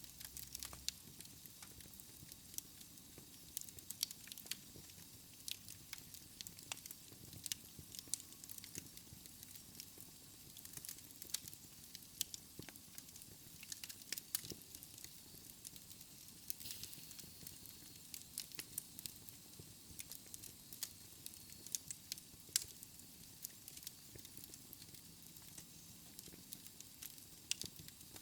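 Wood fire crackling in a fireplace: irregular sharp pops and snaps from the burning logs over a soft steady hiss of the flames.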